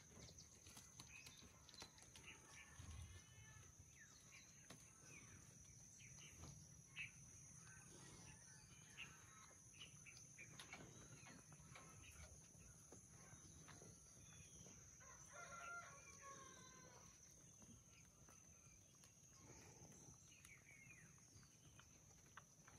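Faint chickens clucking and calling off and on, with a few soft clicks.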